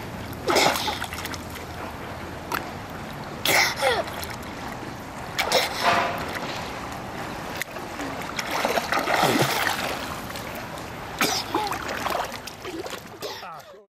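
Pool water splashing from a swimmer's arm strokes: short splashes every one to three seconds over the slosh of moving water, ending abruptly near the end.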